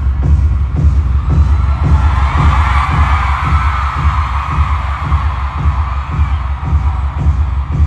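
Concert sound system playing a steady, fast pulsing bass beat, roughly three thumps a second, with the arena crowd screaming over it, swelling in the middle.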